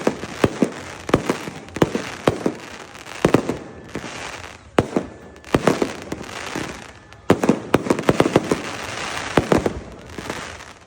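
Aerial fireworks display: many sharp bangs of shells bursting in quick clusters over a continuous crackle, with a short lull about four seconds in before another dense volley.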